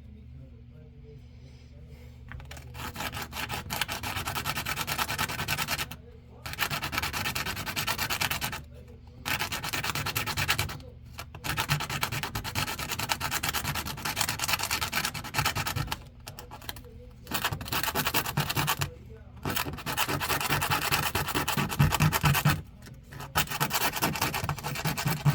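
Sandpaper held against wooden lure blanks spinning on a lathe, rasping in about seven passes of a few seconds each with short pauses between, starting about two seconds in. A low motor hum runs underneath.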